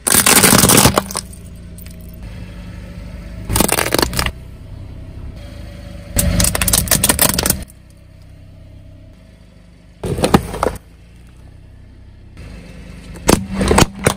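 A car tyre rolling over and crushing hollow plastic objects (toy capsule balls, plastic baskets), five loud bursts of cracking and crunching. Between the bursts the car's engine runs with a steady low hum.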